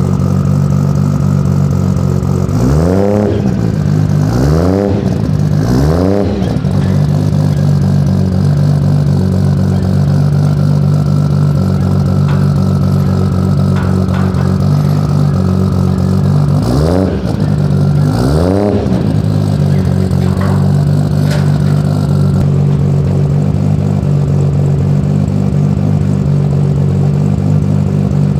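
Honda S2000's engine idling as it warms up, with three quick revs a few seconds in and two more a little past the middle.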